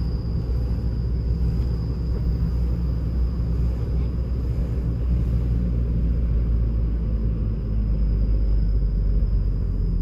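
Steady low rumble of road and engine noise from a car driving, heard from inside the cabin, with a thin, steady high whine over it.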